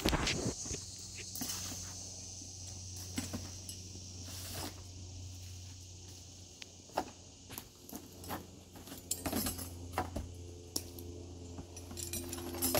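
Metal hardware on a tree climber's harness clinking and knocking irregularly as he shifts about on a shingle roof, over a steady low hum. A high insect buzz fades out about four seconds in.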